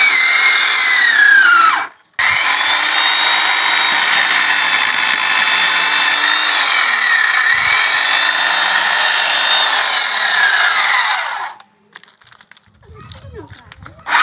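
Corded electric chainsaw running and cutting through a log: a high motor whine that dips in pitch as the chain bites into the wood and rises again as it eases. It stops briefly about two seconds in and restarts, then cuts off near the end once the log is cut through, leaving a few seconds of quieter handling noise.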